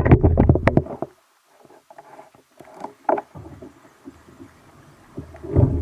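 Knocks, clicks and water noise on a fishing kayak, loudest in the first second, then fainter scattered knocks and splashes with a short burst about three seconds in and another near the end.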